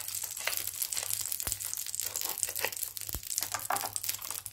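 Knife cutting through a crisp, butter-grilled sandwich, the toasted bread crunching in a quick run of short, irregular crunches.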